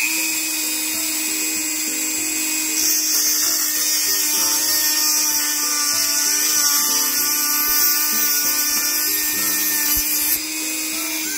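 Dremel rotary tool running at high speed with an EZ Lock grinding disc, glanced along the trailing edge of a CNC aluminum RC boat propeller blade to sharpen it. A steady high whine with a hissing grind that grows stronger about three seconds in and eases about a second before the end.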